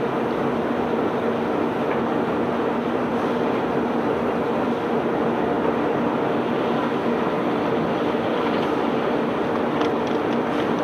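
A self-unloading barge's machinery running as it discharges stone: a steady engine hum under a dense, continuous rattle, with a few sharp clicks near the end.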